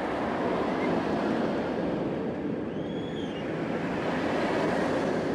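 Steady, even rushing noise, with one brief faint whistled chirp that rises and falls about three seconds in.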